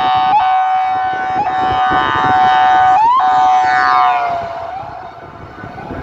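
Police car's electronic siren sounding a steady, loud air-horn tone, broken by short upward chirps about once a second. About four seconds in, the pitch drops slightly and the sound gets quieter as the car passes and pulls away.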